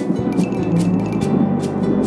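Background music with a steady beat: evenly spaced percussion strokes over sustained notes.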